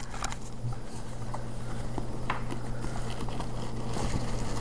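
Hand rummaging through a laptop bag: scattered clicks, knocks and rustles of cables and plastic power adapters being handled.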